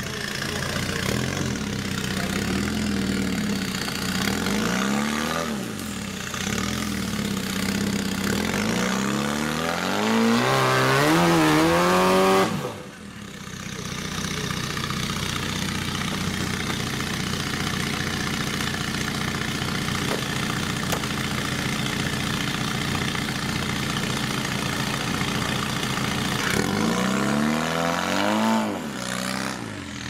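Modified off-road 4x4's engine revving in bursts as it climbs a steep slope. A long rising rev about ten seconds in cuts off sharply, then the engine runs steadily, and it revs up and down again near the end.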